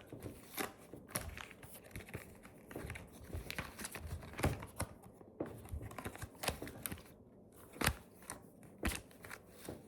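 A sticker pack's wrapper being torn open and crinkled in the hands: a run of irregular crackles and rustles, with the sharpest two about eight and nine seconds in.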